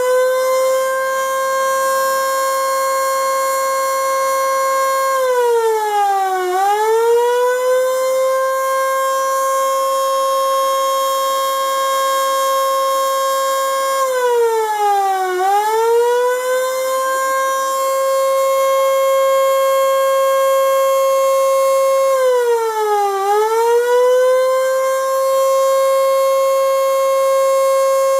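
Electric air raid siren running on 240 volts, holding a steady high wail. Three times, about every eight or nine seconds, its pitch sags and then climbs back up.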